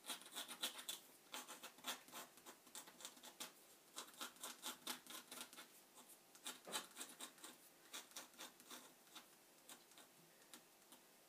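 Etching needle scratching and scuffing the surface of dry-point card in quick, irregular strokes, cutting rough scratchy marks. The strokes come thick and fast at first and thin out towards the end.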